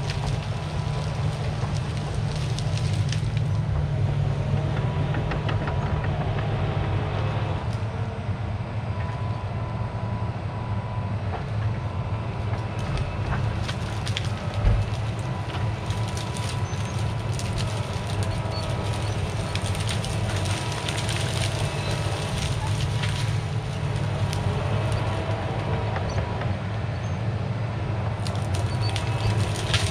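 Caterpillar 973C track loader working: its diesel engine runs steadily under a constant low rumble while the steel tracks clank and rattle, with one heavier thump about halfway through.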